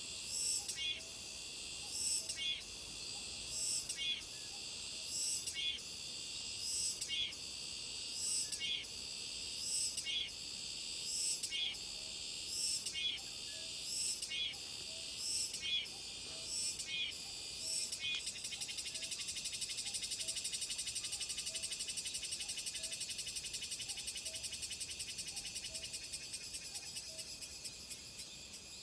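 Cicadas singing: a high-pitched call repeated about every one and a half seconds, then, about two-thirds of the way through, a continuous, rapidly pulsing buzz that fades near the end.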